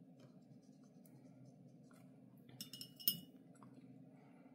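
A paintbrush knocking against a glass water jar: a few light clicks, then one sharp, bright clink that rings briefly, about three seconds in, over a faint steady hum.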